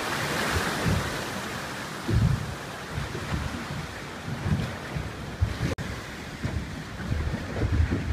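Sea waves splashing and washing against the rocky foot of a cliff right beside a small boat, the wash strongest about the first second, with wind gusting over the microphone.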